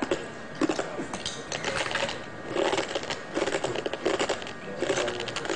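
Glass from a fluorescent lamp tube being bitten and chewed: rapid, irregular crunching and clicking.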